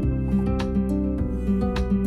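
Background music: plucked acoustic guitar over a bass line with a steady beat.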